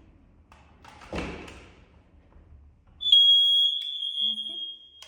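Hard-wired or battery smoke alarm sounding its test signal: one loud, piercing high tone held for about two seconds, starting about three seconds in and cutting off abruptly. A soft thump comes about a second in.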